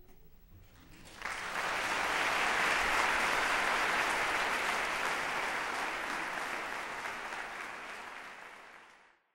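Audience applauding, breaking out about a second in and fading out near the end.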